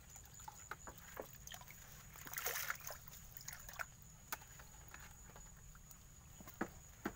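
Faint water sloshing in a plastic bucket as a plastic basket of eel fry is handled and lifted out, with a louder splash about two and a half seconds in. Scattered light knocks of plastic run through it, with a sharper knock near the end.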